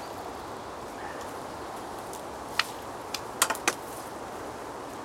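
A handful of sharp clicks and taps from fishing tackle being handled at the rod rest. One comes about two and a half seconds in, and three or four more come close together a second later, over a steady background hiss.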